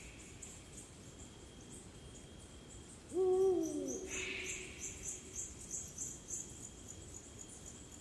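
Eurasian eagle-owl giving one deep hoot about three seconds in, dropping in pitch as it ends, followed a moment later by a short hoarse rasping call. Crickets and other insects chirp high-pitched in quick pulses.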